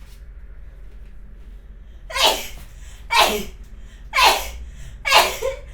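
A woman sneezing four times in a row, about one sneeze a second, starting about two seconds in, over a steady low hum.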